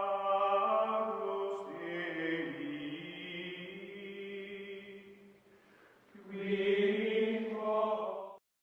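Background music of long, held chant-like vocal tones that fade out around the middle, swell again, and stop abruptly near the end.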